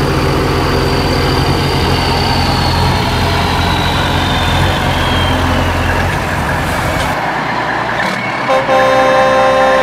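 Truck engine running steadily, with a high whine that slowly falls in pitch, cutting off about seven seconds in. A truck horn sounds near the end and holds.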